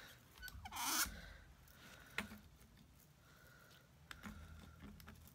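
Quiet handling of paper-craft stamping tools on a tabletop: a short scraping swish about a second in, then a couple of light taps as an ink pad and clear stamping plate are handled.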